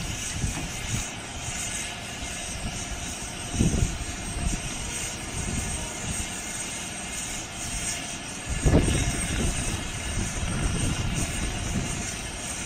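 Diesel engine of a truck-mounted knuckle-boom crane running steadily, with two heavier low rumbles, about four and nine seconds in.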